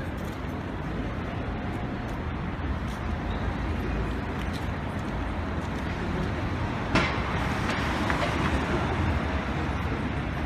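City street traffic noise: a steady rumble of cars passing along the road. A single sharp knock about seven seconds in.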